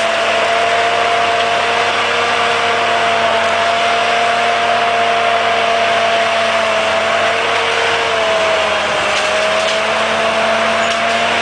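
Crawler tractor running steadily under load, a constant machine whine held over a loud rushing noise, with a few faint ticks near the end.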